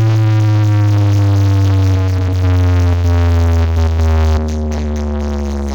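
Electronic music played loud through a large carnival sound system, with heavy bass and a synth tone that slides slowly downward in pitch; the bass drops back about four and a half seconds in.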